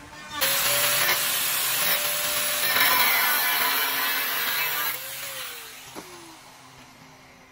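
Angle grinder's abrasive disc cutting through a threaded steel rod: a loud grinding hiss over a steady motor whine, starting abruptly about half a second in. Around five seconds in the grinder is released and its whine falls as the disc spins down, with a single light tick about a second later.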